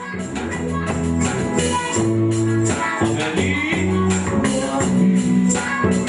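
A band playing with electric bass, electric guitar, keyboard and drums, keeping a steady beat.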